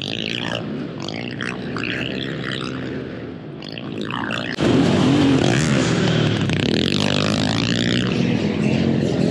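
Small youth dirt bike engine running hard on a dirt track, heard from the bike's own onboard camera. It gets suddenly louder about halfway through.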